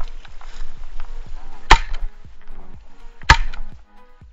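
Two shotgun shots about a second and a half apart, over background music with a steady beat.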